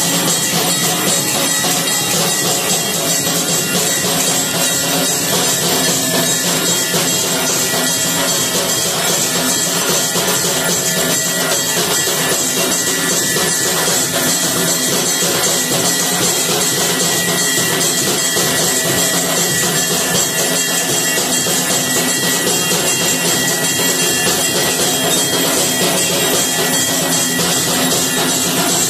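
Temple barrel drum beaten in a fast, unbroken rhythm as ritual puja drumming, with a steady high ringing over it.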